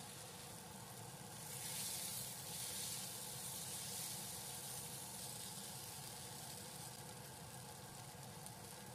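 Cucumber and tofu stir-fry sizzling steadily in a wok, a little louder for a few seconds near the start while it is turned with a spatula.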